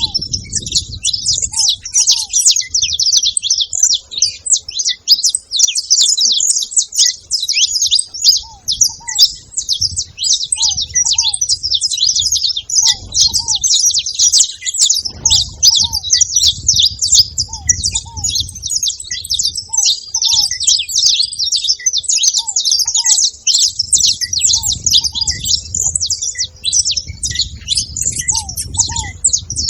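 A flock of saffron finches chattering at a feeding spot: many high, overlapping chirps without a break. A fainter, lower short call repeats every second or so underneath, and a low rumble comes and goes.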